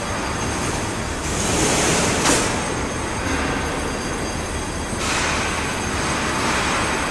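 Steady din of heavy industrial machinery in a large factory hall: a constant low rumble under hissing, grinding noise that swells twice, with a brief sharp noise about two seconds in.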